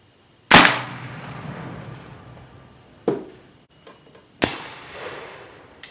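Gunshots: one very loud shot about half a second in whose report trails away over the next second or so, a shorter, sharper shot about three seconds in, then another loud shot with a trailing report about four and a half seconds in, and a faint crack near the end.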